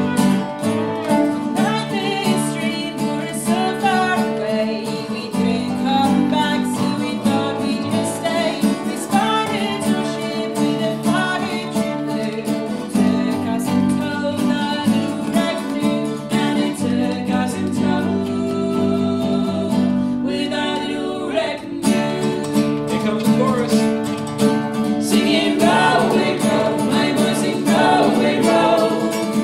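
Live acoustic folk song: a woman singing lead over strummed steel-string acoustic guitar, bowed fiddle and slide dobro. Near the end the fiddle drops out and male harmony voices join her.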